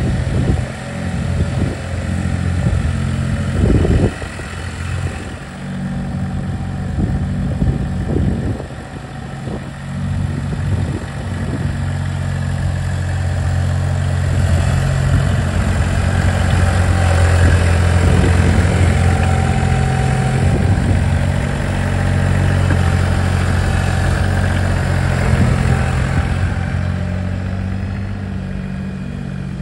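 Iseki TXG23 compact tractor's 1.1-litre three-cylinder diesel engine running steadily while the tractor drives with a snowplow mounted. It is loudest about midway, as it passes close, and eases off near the end as it moves away. Several knocks or thumps sound in the first few seconds.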